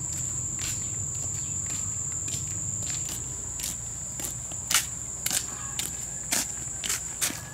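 Steady high-pitched drone of insects, with a person's footsteps in sandals slapping on a concrete path at walking pace, growing louder from about halfway through.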